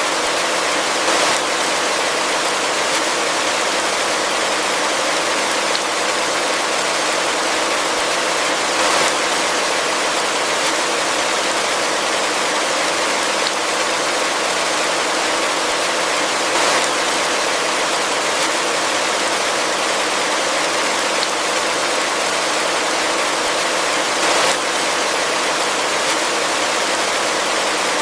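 Heavy rain falling as a steady, even hiss, with a brief swell about every seven or eight seconds.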